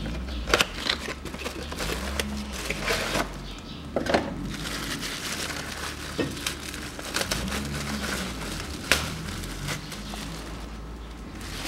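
Clear plastic wrapping crinkling and rustling in gloved hands as a new air filter is unwrapped, with scattered sharp crackles.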